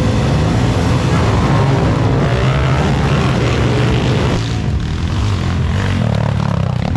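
Small underbone motorcycle engines running, with a rough low hum under a steady wash of noise; the sound shifts a little about four seconds in.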